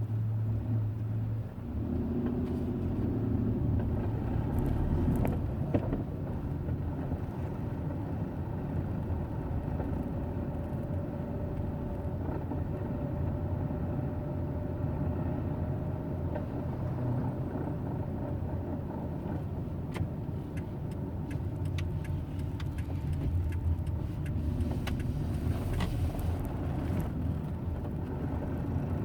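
Hyundai Eon running at low revs: a steady low rumble with a faint thin tone in the middle and scattered clicks near the end. This is the grinding at low rpm that the owner reports as a fault.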